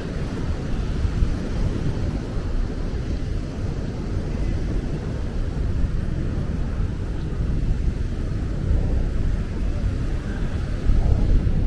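Wind buffeting the microphone: a steady low rumble with no clear pitch, a little louder in gusts near the end.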